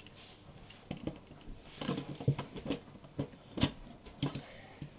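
Irregular small clicks and knocks of plastic Lego bricks being handled and set down on a desk, with two sharper taps about two and three and a half seconds in.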